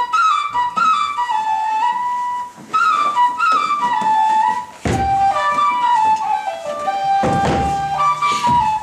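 A flute playing a stepwise melody, one note at a time. A few low thumps sound underneath in the second half.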